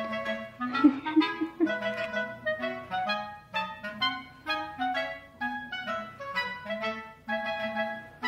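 Background music: a light tune of short, separate pitched notes.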